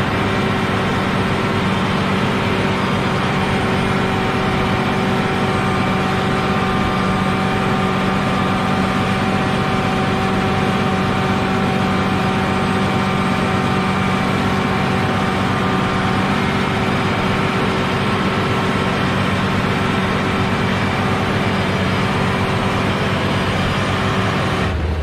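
Diesel engine of a Cat 120 motor grader running steadily under load while it spreads gravel. It cuts off abruptly just before the end, giving way to a lower hum.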